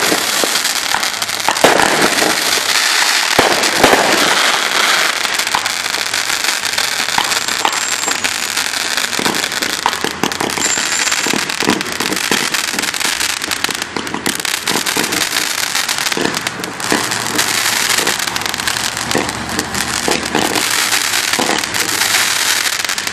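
Consumer fireworks going off without a break: a dense, loud crackling packed with rapid sharp pops and bangs.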